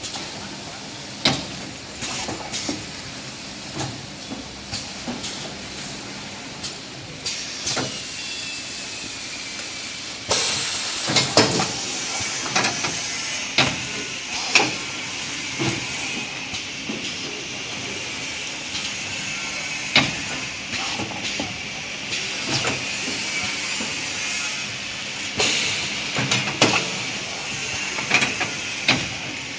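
Kitchen towel roll bundle packing machine running: a steady hiss with frequent irregular clacks and knocks from its mechanism. It grows louder about ten seconds in.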